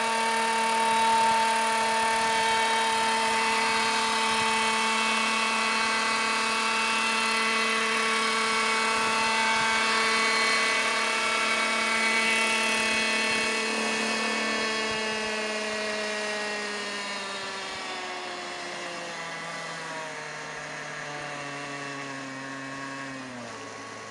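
Petrol-engined radio-controlled scale Robinson R22 helicopter running steadily with engine and rotor at flight speed. From about halfway through, its pitch falls steadily and it grows quieter as the engine is throttled back on the ground and the rotor winds down.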